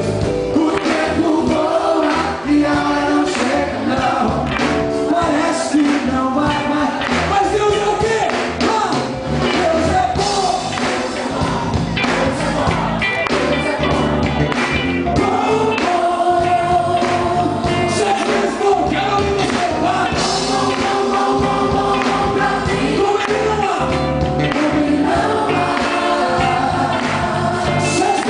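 Live gospel music: a band with electric guitar and drums, with a choir of voices singing, holding long notes in the second half.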